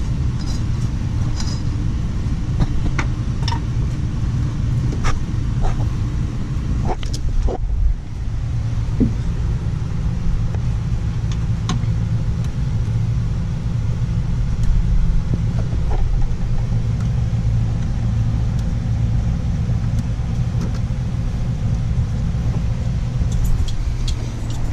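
A steady low rumble runs throughout, with scattered light clicks and taps from brake line fittings being handled and fitted.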